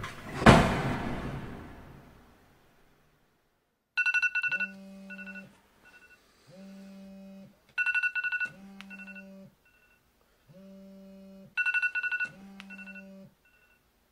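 A door shuts about half a second in. From about four seconds in, a smartphone alarm goes off: bursts of rapid two-pitch beeps repeating about every four seconds. Between them comes a short low buzz, the phone vibrating against the wooden nightstand.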